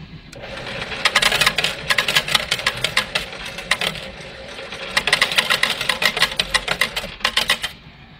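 A Perla de Oriente pinball slot machine paying out: coins clatter rapidly into its metal payout tray in two runs of a few seconds each, over a steady hum.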